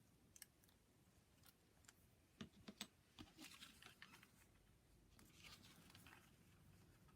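Near silence with a few faint taps and soft rustles of cardstock pieces being handled, the taps clustered about two and a half seconds in.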